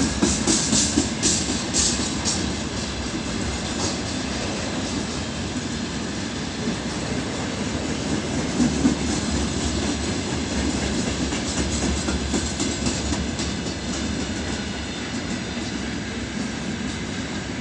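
Long freight train rolling past slowly: a steady rumble with wheels clicking over rail joints, in bunches at the start and again about two-thirds of the way through.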